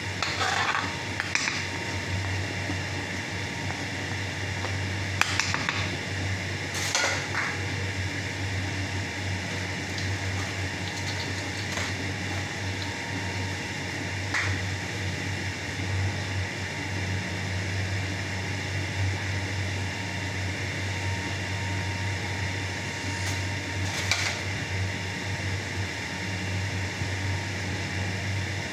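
A steady low hum runs under a wooden paddle and a metal spoon working a large aluminium pot of thick harees. The paddle and spoon give a few sharp knocks against the pot, about five, seven and twenty-four seconds in.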